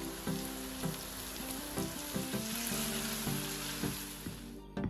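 Sliced champignon mushrooms sizzling in hot oil in a frying pan while being stirred with a spatula, over light background music. The sizzle cuts off just before the end.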